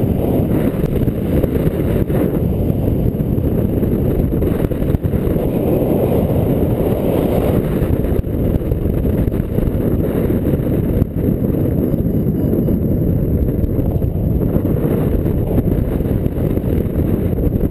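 Steady wind rushing over the microphone of a camera on a paraglider in flight: a loud, deep, even rumble with no engine note.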